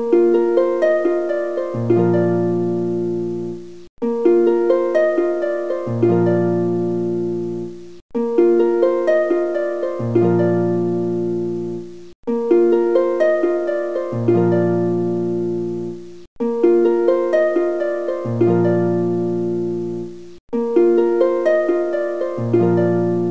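Background music: a gentle harp-like plucked melody in a short phrase that loops about every four seconds. A deep bass note joins halfway through each phrase, and there is a brief gap between repeats.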